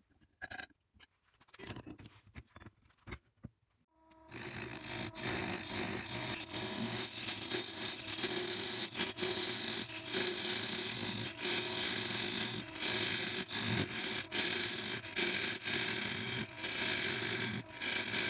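A few light clicks and knocks as a wood blank is tightened in a metal four-jaw lathe chuck with a chuck key. About four seconds in, the wood lathe starts and a gouge cuts steadily into the spinning blank: a continuous scraping of shavings over the hum of the lathe.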